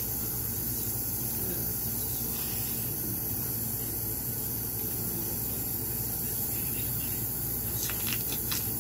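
Steady hiss with a low hum underneath while glittery slime is stretched; near the end a few short clicks and pops as the slime is squeezed in the hands.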